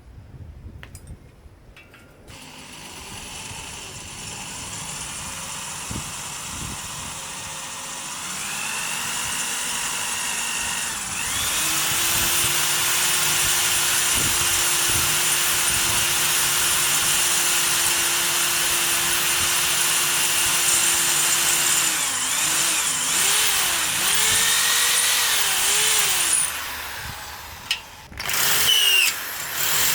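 Electric drill running up to speed and drilling into metal, to cut a new thread in place of a rusted screw hole; the motor whine dips and recovers several times under load. It stops about three quarters of the way through and starts again briefly near the end.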